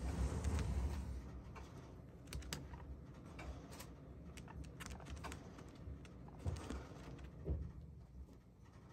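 Guinea pig moving about at a wooden hay rack: scattered light clicks and rustles at an uneven pace, with a louder low rumble in the first second.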